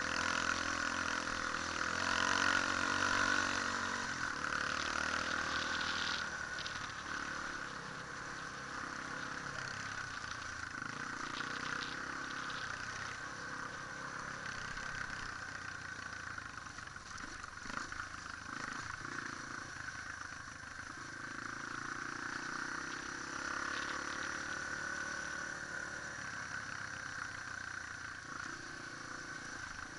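Trail motorcycle engine running while riding a rough dirt track, heard onboard, its revs rising and falling, louder in the first few seconds, with a few short knocks from the bumps.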